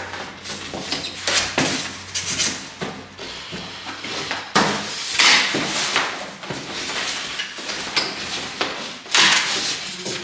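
Irregular knocks and clatter with bouts of rustling, from objects being handled and set down.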